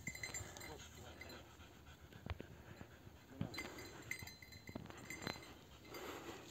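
Faint footsteps and rustling in dry grass and scrub, with a few sharp clicks scattered through.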